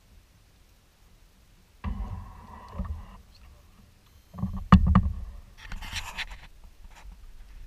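Kayak paddling: paddle strokes splashing in the water after a quiet first two seconds. A sharp knock about halfway through is the loudest sound, followed by a brief hissing splash.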